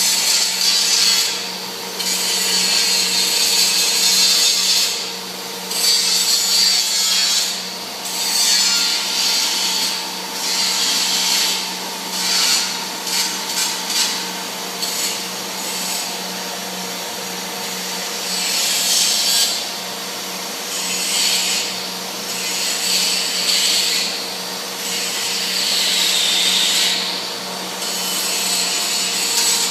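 Dean Smith and Grace Model 2112 centre lathe running with a steady hum, overlaid by repeated bursts of harsh scraping noise, each a second or two long, coming every couple of seconds.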